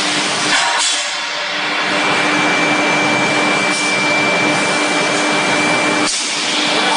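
Steady machinery noise of an automatic forging line with a forging robot and forging presses: a constant hum under a loud noisy rush, with a high whine held for a few seconds mid-way.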